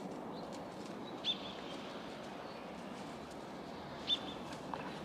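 A bird chirping twice, two short high chirps about three seconds apart, over a steady faint outdoor hiss.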